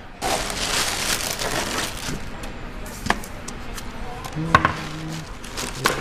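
Rustling of packaging, then a few sharp knocks as frozen dough pucks are set down on a metal sheet pan, with a brief low hum partway through.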